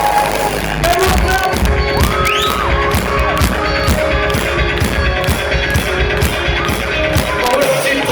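A live rock band playing through PA speakers, with drums keeping a steady beat of about four strokes a second under held guitar or keyboard notes, and one rising slide about two and a half seconds in. The sound is loud and crackly, distorted from being recorded right next to the speakers.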